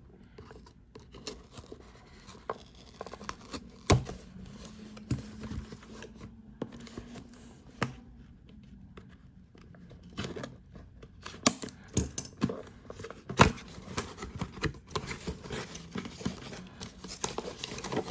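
Packing tape and a cardboard box being cut and torn open by hand: scattered tearing, scraping and clicks of handling the packaging, with a sharper knock about four seconds in and another, the loudest, about thirteen seconds in.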